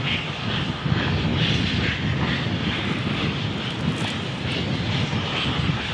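Steam locomotive working hard up a grade, its exhaust beating in a steady rhythm of about two to three chuffs a second over a continuous low rumble.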